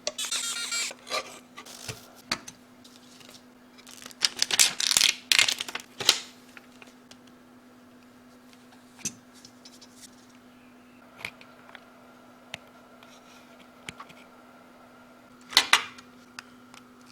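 Clicks, rubbing and short clattery bursts of a mechanical keyboard and its packaging being handled, in three busier spells: at the start, about four to six seconds in, and briefly near the end. A faint steady hum runs underneath.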